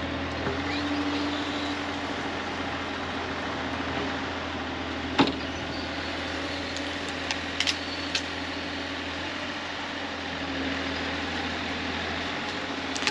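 A vehicle engine running steadily, with a sharp knock about five seconds in and a few short clicks a couple of seconds later.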